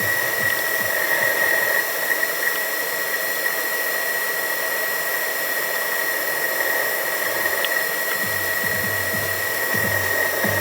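A machine tool running, giving a steady high whine over an even hiss. The whine stops abruptly at the end.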